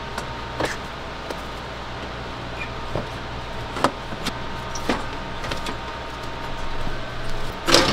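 Scattered light knocks and clicks of an aluminium heat exchanger being worked down into the car's front end against the plastic shroud and mounts, with a louder clunk near the end as it drops into place, over a steady hum.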